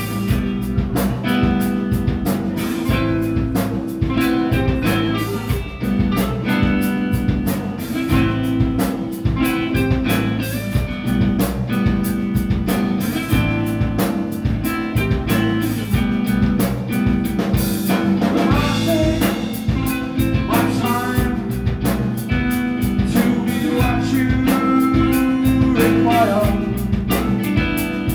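Post-rock band playing live: distorted electric guitars over a drum kit with steady drum hits, loud and unbroken.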